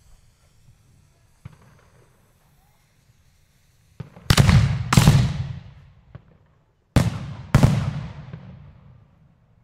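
A volley of three 3-inch (75 mm) Klasek chrysanthemum aerial shells going off: mortar lift charges and shell bursts make loud bangs in two pairs, about 4 s in and about 7 s in, each dying away over about a second, with a few smaller cracks between.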